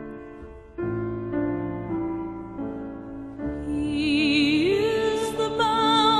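Piano playing slow, sustained chords of a gospel hymn accompaniment. About four seconds in, a held melody with wide vibrato comes in over it and rises in pitch.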